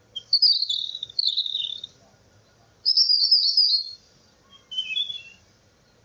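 A bird singing in three bursts of high, rapid chirping, each about a second long, with short pauses between.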